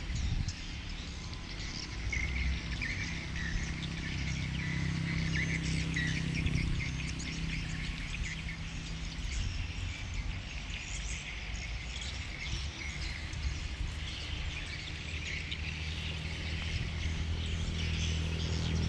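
Small birds chirping and twittering over a steady low hum.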